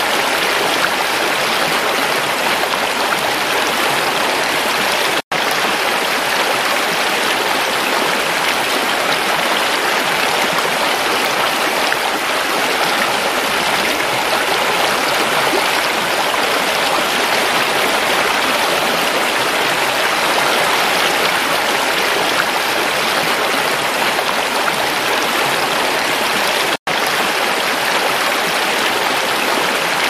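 Shallow, fast-flowing river rushing over and between rocks: a steady, even rush of water, broken by two momentary dropouts, about five seconds in and near the end.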